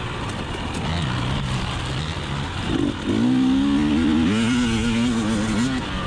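A 2020 KTM 300 XC TPI's fuel-injected single-cylinder two-stroke engine running under a trail ride, steady at low revs at first, then revving up about three seconds in and holding higher revs before backing off near the end.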